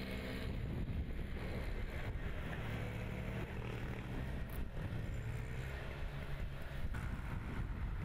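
Small single-stage snowblower's petrol engine running steadily while it clears snow from a sidewalk.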